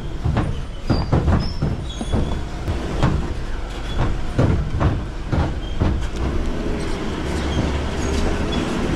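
Car towing a caravan over a rough, bumpy dirt track: repeated knocks and rattles from the jolting over the steady drone of engine and tyres. About six seconds in, the knocks thin out and the drone runs on evenly.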